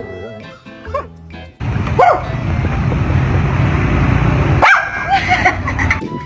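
A dog barking and yipping several times in short calls over background music, with a loud steady rush of noise under the middle of it that cuts off suddenly near the end.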